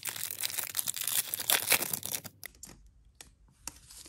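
A Pokémon booster pack's foil wrapper tearing and crinkling for about two and a half seconds. After that come only a few light clicks and faint rustles as the pack is handled.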